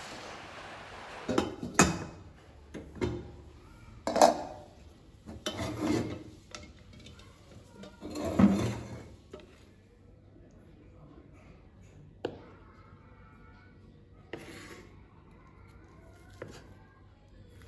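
Cookware and utensils clattering in a kitchen: a run of knocks, clanks and scrapes for the first nine seconds or so, then a few single knocks a couple of seconds apart.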